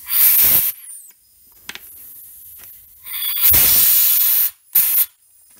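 Compressed air from a hand blow gun hissing into the outlet of a brake master cylinder to blow out its rear piston and seals, in three loud blasts: a short one at the start, a longer one of about a second and a half past the middle, and a brief one just after.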